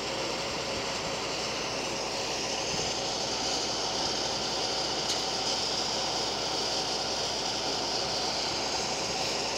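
Tram running along a curved elevated track: a steady noise of wheels on rails and running gear, with a high hiss that grows a little louder through the middle.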